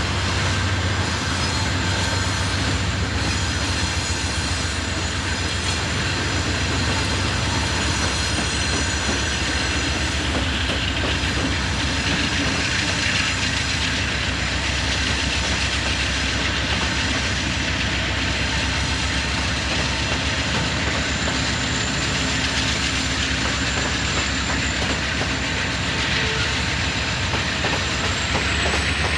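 Train cars rolling past on the rails at steady speed, a continuous rumble with wheels clicking over the rail joints and faint thin high-pitched tones from wheel on rail.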